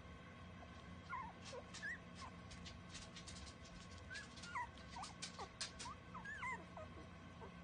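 Newborn puppies squeaking and whimpering faintly: short high-pitched squeaks that rise and fall, several a second from about a second in, with soft clicks among them.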